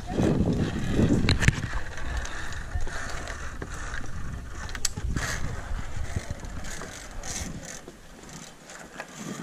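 Metallic clicks and clatter of zip-line harness gear, steel carabiners and a trolley pulley knocking against each other and the cable, with several sharp clicks. A low rumble on the microphone is the loudest sound in the first second or so.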